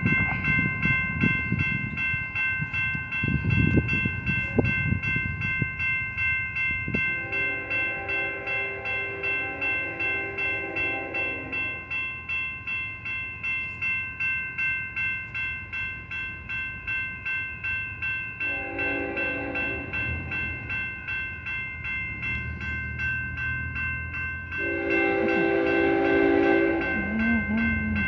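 Railroad crossing bell ringing steadily at about two strokes a second. An approaching BNSF freight locomotive sounds its horn over it: a long blast about seven seconds in, a short one about two-thirds of the way through, and another long one near the end. A low rumble is heard in the first few seconds and again as the horn sequence finishes.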